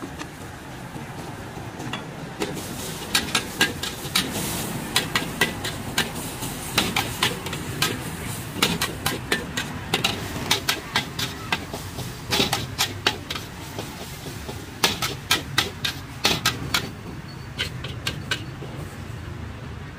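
Metal spatula clanking and scraping against a wok during stir-frying of vegetables, in quick irregular strokes with a short pause about two-thirds through and fewer strokes near the end.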